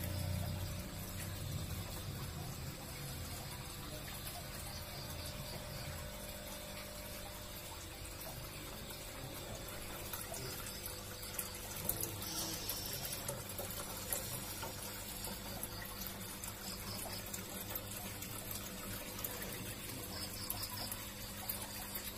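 Water running and trickling steadily into freshwater crayfish holding tanks, over a low steady hum.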